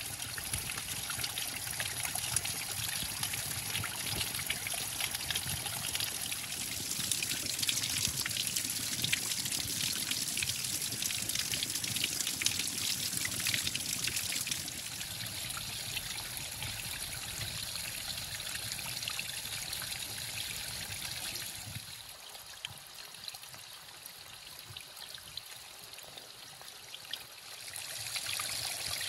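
Small waterfall trickling and spattering in thin streams and drops over wet shale ledges. The splashing is steady, falling quieter for several seconds late on before picking up again near the end.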